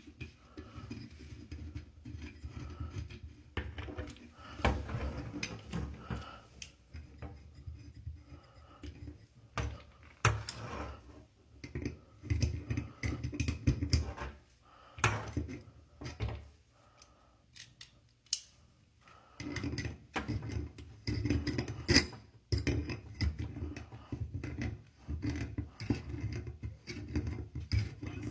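Irregular clicks, knocks and scrapes of hands working with tools and plumbing fittings, as a toilet's water supply line is being swapped for a braided one.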